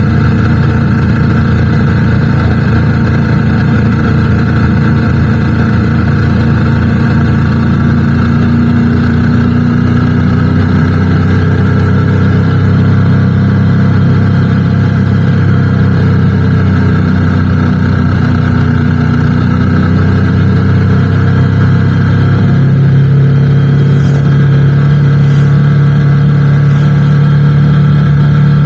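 Motorcycle engine running steadily on the move, its note stepping up to a higher, steady pitch about 22 seconds in.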